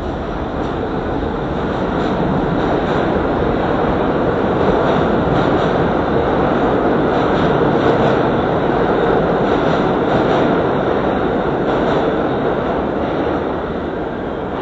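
Subway train rumble echoing through the underground station, a loud steady noise that swells over the first few seconds and eases off near the end.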